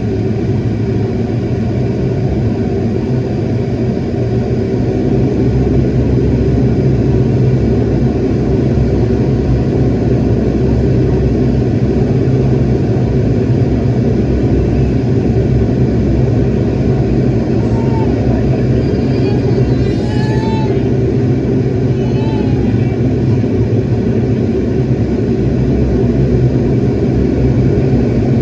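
Steady drone of an airliner's jet engines and airflow heard inside the passenger cabin, a little louder a few seconds in. A couple of brief, faint voice-like sounds come through about two-thirds of the way in.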